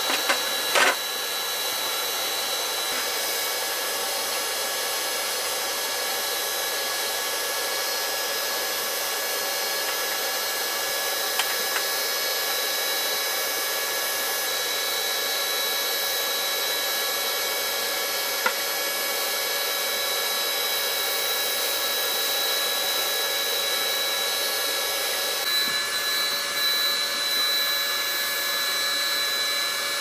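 Dense, steady chorus of tropical rainforest insects at night, many high, even trills layered together. A few soft clicks and knocks of things being handled come through it.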